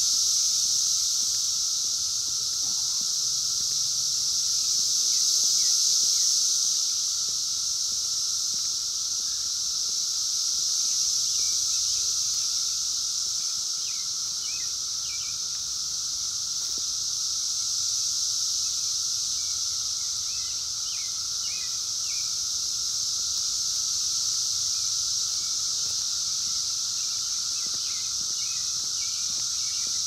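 Chorus of Brood X 17-year periodical cicadas: a steady, dense high-pitched drone with a thinner, lower steady hum beneath it. Faint short chirps come and go from the middle on.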